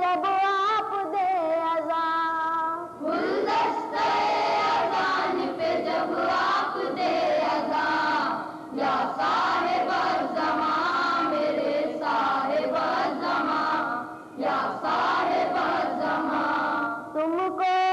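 Boys' choir singing an Urdu devotional manqabat chorus in unison, many young voices together. It opens with a single clear melodic line for about three seconds, which comes back near the end.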